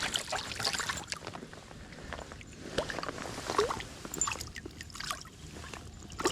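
Creek water splashing and trickling, with scattered small splashes and knocks at irregular moments.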